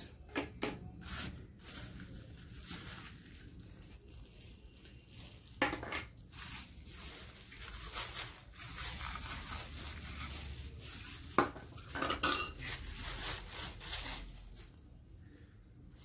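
Clear plastic packaging bags crinkling as they are pulled open, with hard plastic vacuum-cleaner nozzles and attachments clicking and knocking on a wooden tabletop. Two sharper knocks stand out, about six and eleven seconds in.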